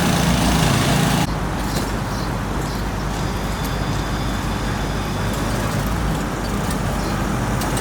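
A machine engine running with a steady hum, cutting off abruptly about a second in, followed by a steady rumble of traffic and road-construction noise.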